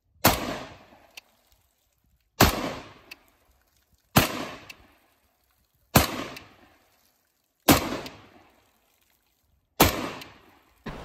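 Six single shots from a Smith & Wesson M&P15 AR-15 pistol in 5.56/.223, fitted with a linear compensator, fired roughly every two seconds. Each sharp crack is followed by an echo that dies away within about a second.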